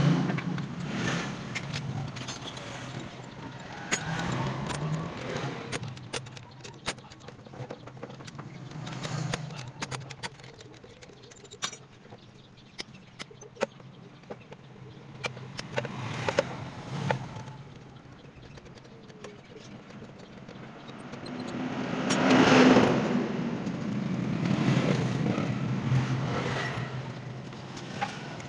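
Scattered metal clinks and clicks of hand tools and loose engine parts as a motorcycle cylinder head is unbolted, over a steady low traffic hum. Two-thirds of the way through, a passing vehicle rises and fades; it is the loudest sound.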